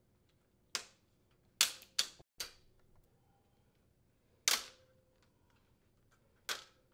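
Sharp plastic snaps and clicks as the old upper dish rack adjustment assemblies of an Electrolux dishwasher are unhooked and pulled off the wire rack rails. Six separate clicks, three of them close together around two seconds in.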